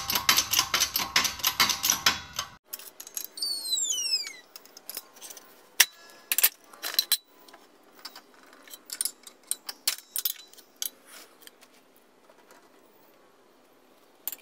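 Metal parts of a steering clutch assembly being worked under a hydraulic press: a quick run of rapid metallic clicking at the start, then scattered metal clicks and taps with a few short falling squeaks, going quiet near the end.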